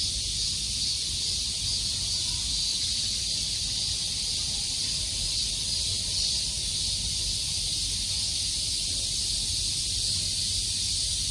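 Steady high-pitched hiss of insects calling in the grass, unchanging throughout, over a low, even rumble.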